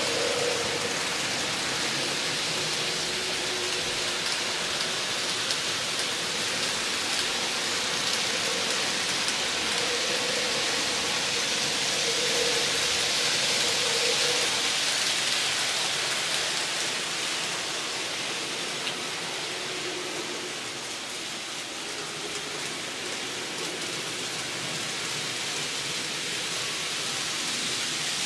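N scale model trains running on the layout: a steady hiss of small metal wheels on rail with a faint, on-and-off motor hum. The sound eases off in the middle and grows again near the end.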